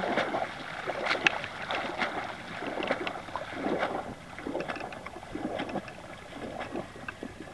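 Pond water splashing and sloshing irregularly as a horse wades and paws at it with a front leg.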